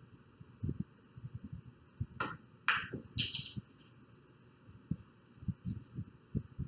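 A pool shot: the cue tip strikes the cue ball about two seconds in, followed within a second by two sharp clacks of billiard balls hitting, the last the brightest. Soft low thumps come and go throughout.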